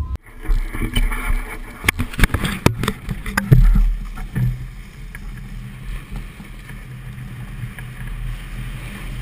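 Skis sliding and scraping over packed snow on a downhill run, with wind rumbling on the microphone. A few sharp knocks come about two to three seconds in.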